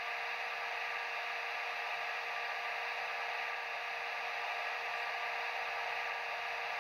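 Sound decoder of a Piko H0 model of a DB class 115 electric locomotive playing its brake-resistor fan sound (function F19) through the model's small speaker: a steady whirring hiss with two steady humming tones underneath.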